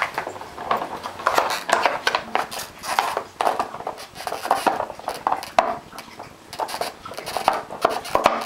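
A dog chewing and nosing a plastic bottle, the crushed plastic crackling and crinkling in quick, irregular bursts.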